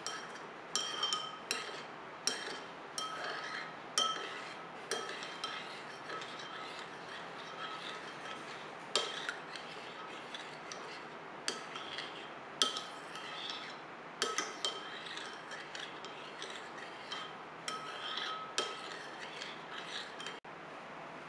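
Metal spoon stirring a citrus juice and gelatin jelly mixture in a small white ceramic bowl, clinking against the bowl's sides at irregular intervals, roughly once a second. Each clink has a brief ringing tone.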